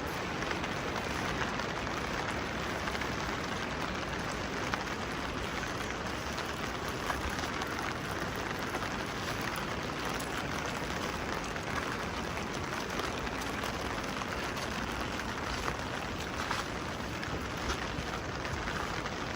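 Steady rain falling, with a few sharper drips standing out now and then.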